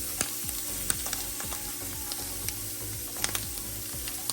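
Chicken sausages sizzling in a non-stick frying pan: a steady hiss with scattered crackles and pops.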